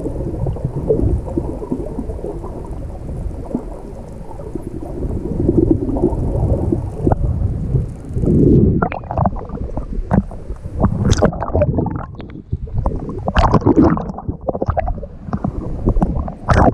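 Muffled underwater rumbling and gurgling of water moving around a submerged action camera's housing. About halfway through, sharp irregular splashing and sloshing take over as the camera moves at and through the water surface.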